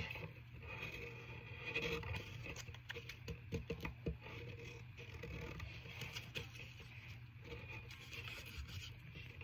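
Irregular small scrapes, taps and rustles of paper craft materials being handled on a surface close to the microphone, over a low steady hum.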